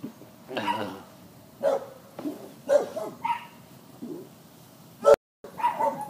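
A person belching over and over, short pitched burps about one a second. Near the end there is a sharp click and a moment of dropout.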